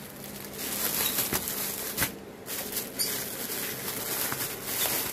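Rustling and crinkling of plastic-wrapped cotton tote bags being handled on a table, with small ticks throughout and a light knock about two seconds in.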